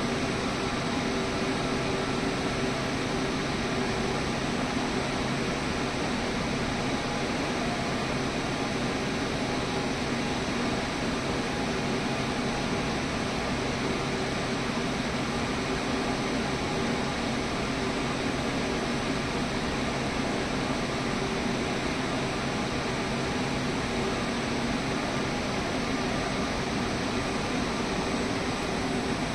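Steady machine hum with a fan-like rush and a few faint steady tones, unchanging throughout.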